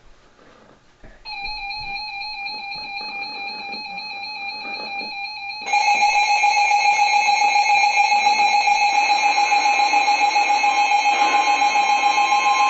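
Emergency Alert System alert tone: a steady, buzzy electronic tone with a fast flutter that starts about a second in and jumps louder about six seconds in.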